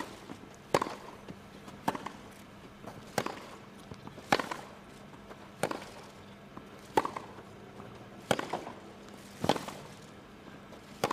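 Tennis rally: a ball struck back and forth by two players' rackets, giving about nine sharp pops at a steady pace of roughly one every second and a quarter.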